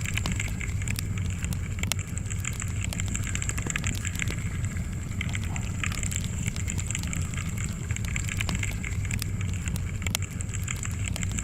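Wood fire crackling, with frequent small irregular pops and snaps over a steady low rumble of the flames.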